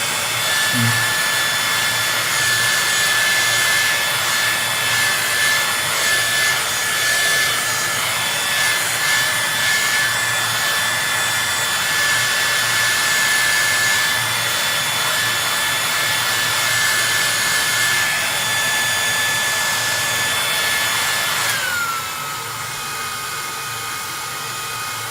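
Heat gun blowing hot air: a steady high whine over a rushing hiss of air. About 21 seconds in, the whine slides down in pitch and the blower gets quieter as the gun is turned down to its medium setting.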